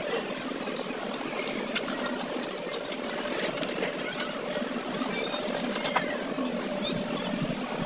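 A machine running steadily in the background: an even hum with scattered light clicks and rattles.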